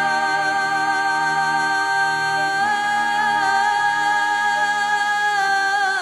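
Background music of long, sustained held notes, moving slightly to new pitches about halfway through and again near the end.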